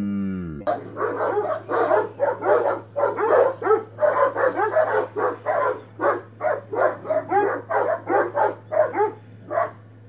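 Dogs barking at each other in a rapid, overlapping volley of short barks, stopping just before the end. A short pitched sound comes at the very start, and a steady low hum runs underneath.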